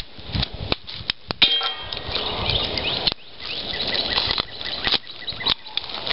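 Plastic bag rustling and crinkling as it is handled, with scattered sharp clicks and taps, and a brief squeak about a second and a half in.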